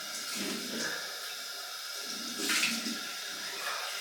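Water running from a tap into a sink while cold water is splashed onto the face for a rinse after shaving, with a louder splash about two and a half seconds in.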